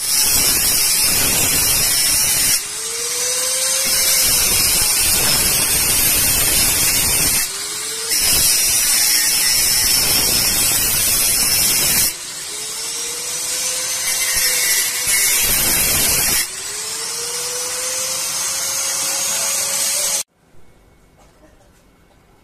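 Angle grinder cutting through the steel shell of a refrigeration filter drier, in about four spells of cutting with a rising whine at each break. It stops abruptly near the end.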